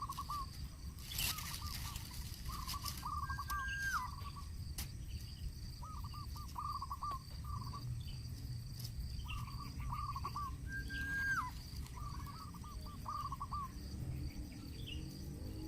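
A bird calling over and over in short phrases of quick falling notes, some ending in a higher held note, a phrase every two seconds or so. A steady high insect buzz runs underneath.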